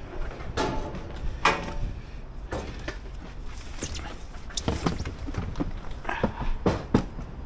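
Irregular knocks and clunks, about a dozen spread unevenly, over a steady low rumble.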